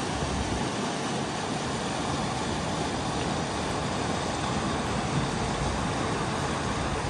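Steady rushing of river water pouring through a rocky white-water chute, an even noise without rhythm that cuts off suddenly near the end.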